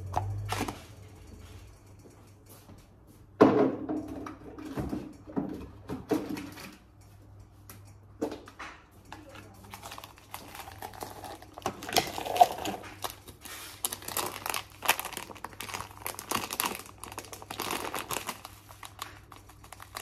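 A plastic bag being handled, crinkling and rustling in irregular bursts, mixed with clicks and knocks of things set down on a stone countertop. The sharpest knock comes about three and a half seconds in.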